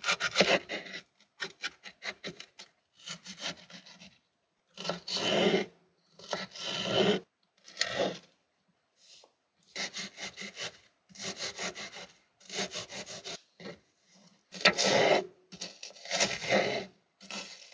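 A serrated kitchen knife cutting red bell pepper and then red onion on a wooden chopping board, in runs of quick strokes with short pauses between.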